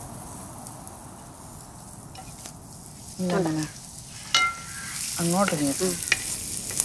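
Sliced onion sizzling in hot oil in a metal pan while being stirred with a wooden spatula: a steady high hiss. A sharp clink with a short ring comes a little past the middle.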